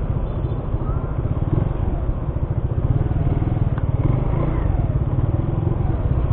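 Small motorcycle engine running at low speed close to the microphone, a steady, rapid low pulsing as the bike rolls slowly.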